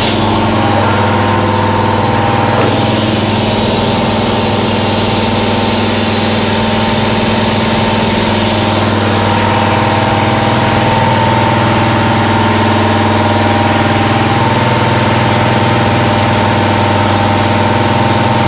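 1995 Haas VF-3 CNC vertical mill running steadily, spindle and drive giving a constant hum and whine while flood coolant hisses onto a drill cutting into the fixture block.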